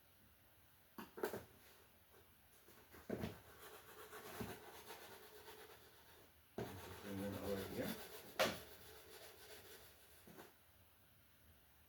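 A cardboard shipping package being handled and cut open with a knife: rubbing and scraping of cardboard and tape, with a few sharp knocks and a louder stretch of rubbing in the second half.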